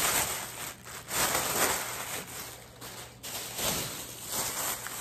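Plastic shopping bag rustling and crinkling in several bursts as grocery items are pulled out of it.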